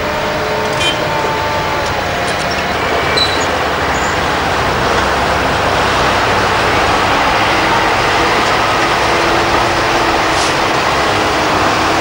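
Diesel engines of heavy earthmoving machines running steadily: a road grader, then dump trucks and an excavator. A loud, dense engine noise with a faint steady whine in it, slightly louder after about five seconds.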